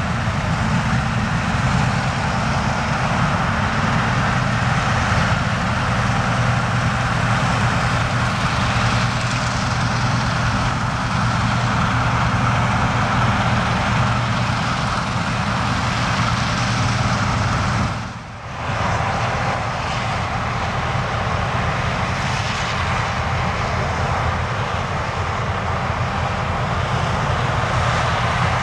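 John Deere combine harvester running steadily under load while harvesting wheat: a constant low engine hum with the noisy rush of the threshing machinery. The level dips briefly about eighteen seconds in.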